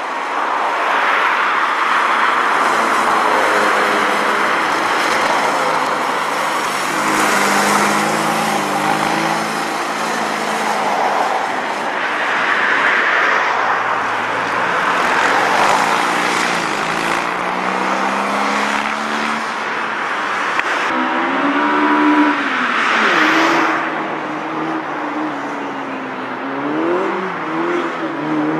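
Classic Fiat 500's air-cooled two-cylinder engine revving through a gymkhana run, its pitch rising and falling with each burst of throttle and gear change. In the last few seconds a different small car, a Honda S800, is heard running the course.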